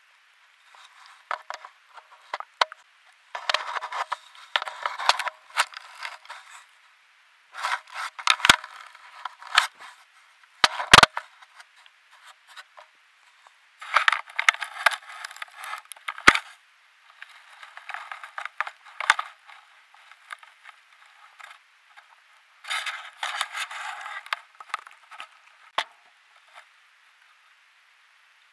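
A bear's fur rubbing and scraping right against a trail camera, in spells of one to three seconds, with a few sharp knocks against the camera, the loudest about eleven seconds in.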